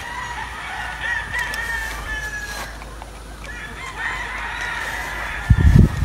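Gamefowl roosters crowing: two long crows, one after the other. Near the end a much louder burst of rapid low thumping comes in.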